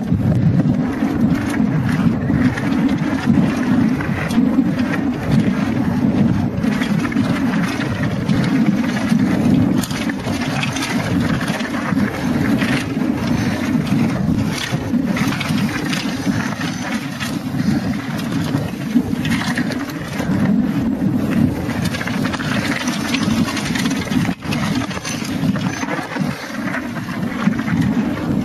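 Steady wind rushing over the microphone of a mountain bike on a fast downhill run, with the bike rattling and knocking now and then over the rough trail.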